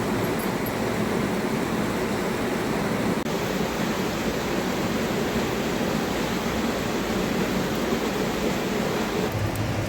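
Steady rushing of water, an even noise that holds its level throughout.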